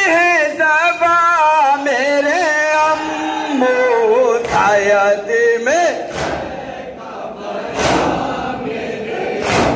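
A man's voice sings a noha, a Shia mourning lament, with a wavering, ornamented melody, while a crowd of mourners chants along. After about six seconds the singing gives way to loud strikes in unison about every 1.7 s, the mourners beating their chests (matam).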